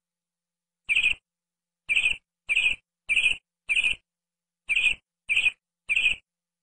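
Bird chirping: eight short, high chirps at a steady pace, with a slightly longer pause after the first and after the fifth.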